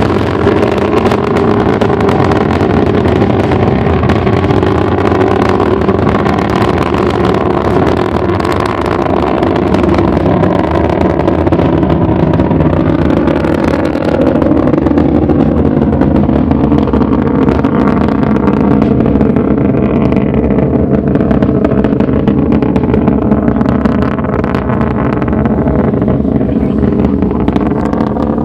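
Atlas V rocket's RD-180 first-stage engine heard from the ground as it climbs away: a loud, steady rumble with a slowly wavering texture, its top end thinning out over the last several seconds.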